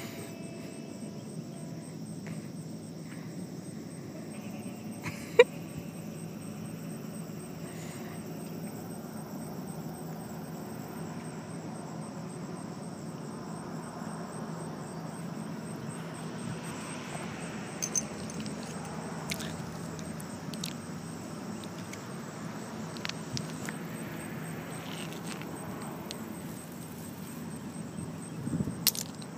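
Outdoor ambience of a steady, high insect trill over a low steady rumble. One sharp click comes about five seconds in, and a few soft clicks and rustles near the end.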